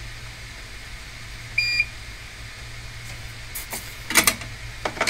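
A single short electronic beep about a second and a half in, over a steady low hum. A few sharp clicks and knocks follow near the end, the loudest about four seconds in, as soldering tools are handled.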